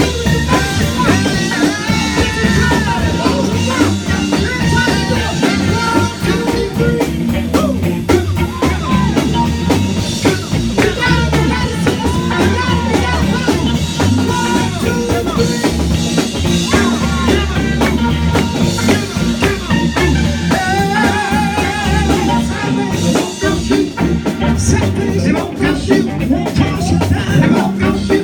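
Gospel band music with drum kit and guitar, playing steadily throughout.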